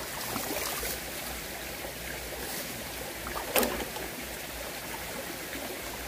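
Shallow mountain stream running over stones, with hands splashing in the water as someone washes their face. One brief sharp sound about three and a half seconds in.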